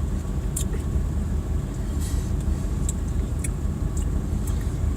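Steady low rumble of a car, with a few faint clicks scattered through it.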